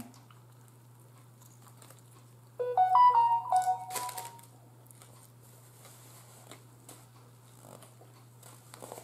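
A short electronic chime tune of several quick stepped notes, lasting about a second and a half, starts between two and three seconds in over a steady low hum.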